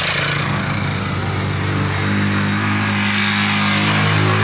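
Small motorcycle engine of a motorcycle-and-sidecar tricycle running under load as it climbs a steep road. It grows louder as it nears, and its note rises a little about halfway through.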